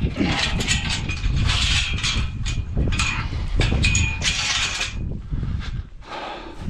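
Metal livestock panel clanking and rattling as it is being taken off, with irregular knocks and a light metallic ringing.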